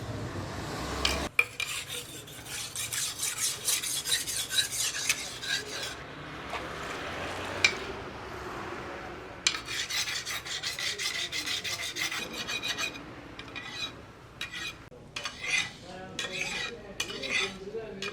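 Steel sickle blade being sharpened: rapid, rasping scraping strokes in two long bouts with a short pause between them, then sparser strokes near the end.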